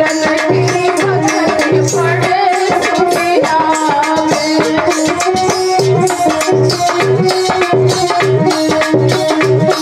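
Devotional bhajan performed live: a woman's singing with tabla keeping a steady beat, held accompanying tones and jingling percussion.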